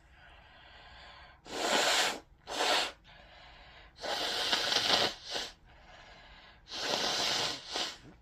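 A person blowing their nose three times, each a long blow followed by a short second one, with quieter breaths in between.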